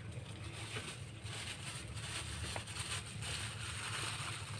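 Kittens eating dry kibble, with faint scattered crunches over a steady low hum.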